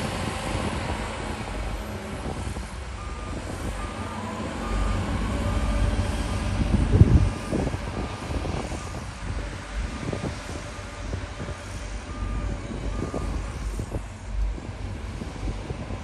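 A reversing alarm on heavy earthmoving machinery beeps about twice a second over the steady low rumble of diesel engines. About seven seconds in, a louder low rumble swells briefly.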